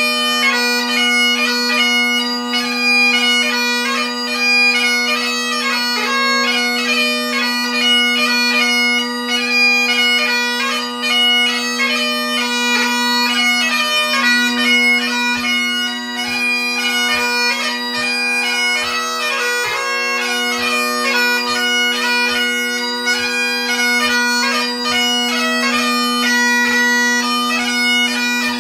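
Great Highland bagpipe played solo: the drones hold a steady low chord under the chanter's fast-changing melody, with soft low thumps in time from about halfway through.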